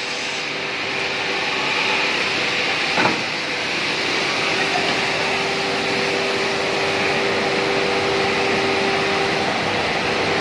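Two-side brush sanding machine running with a steady whirring hiss as a plywood sheet is fed through its brush rollers. A single sharp knock comes about three seconds in, and a steady mid-pitched hum joins about a second later.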